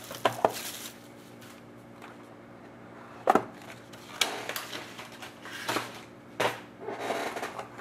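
A cardboard trading-card box being handled and opened: a couple of light clicks, one sharp knock about three seconds in, then short bursts of cardboard scraping and rustling.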